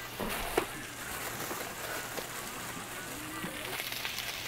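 Strips of pork belly sizzling on a hot griddle pan: a steady hiss, with a short click about half a second in.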